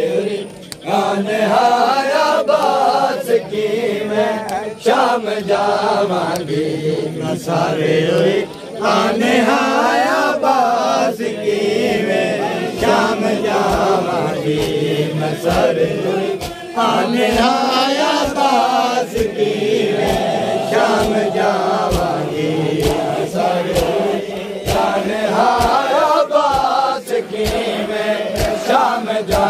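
A group of men chanting a noha, a Shia lament, in unison, with rhythmic chest-beating (matam) slaps at about one a second.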